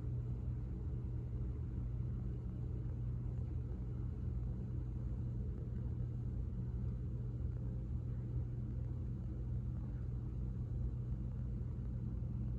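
A steady low hum with a rumble underneath, unchanging throughout, with no clicks or other events.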